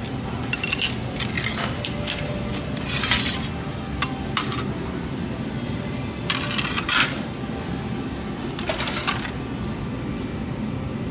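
Sheets of stained glass clinking and rattling against each other as they are handled and laid down on a metal worktable: several sharp clinks in the first two seconds, then short bursts of rattling glass about three, six and a half and nine seconds in, over a steady low room hum.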